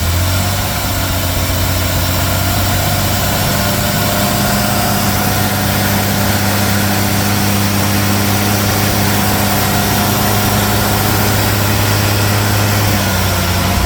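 Jaguar straight-six engine idling steadily, just after being started.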